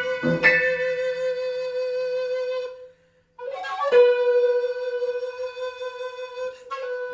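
Flute holding one long high note, with a low note struck under it just after the start; after a brief silence about three seconds in, the flute comes back with a breathy scoop up to the same note and holds it again.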